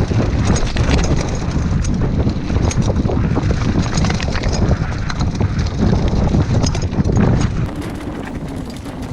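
Mountain bike ridden over rough trail, with wind buffeting the microphone as a heavy rumble and the bike clattering and rattling in many quick clicks. It gets quieter near the end.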